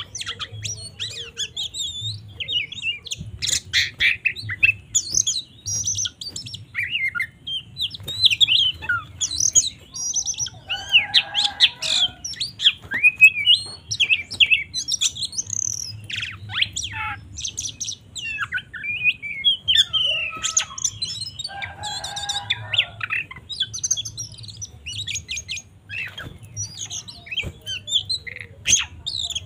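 Oriental magpie-robin singing a fast, varied song of short whistles and chirps, with two harsher, lower chattering phrases at about 11 and 21 seconds, over a faint low hum.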